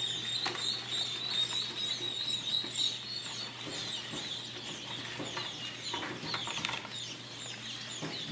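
A brood of newly hatched bobwhite quail chicks peeping without pause, many short, high cheeps overlapping one another.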